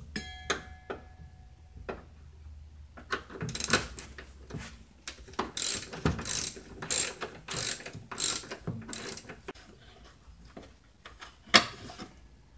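Socket ratchet clicking in a run of strokes, about two a second, as a screw behind the rear wheel well is backed out. A short metallic ring comes near the start and a single louder click near the end.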